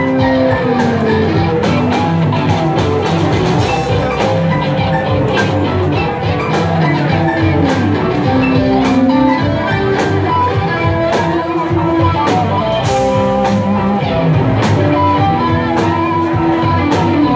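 Live rock band playing: electric guitars, drums, bass and keyboards.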